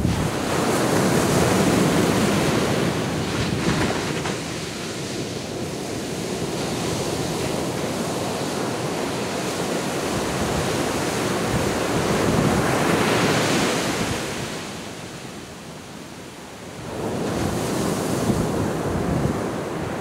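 Sea waves breaking and washing up a sandy beach: a continuous rush of surf that swells and eases in slow surges, with a lull about fifteen seconds in before the next wave builds.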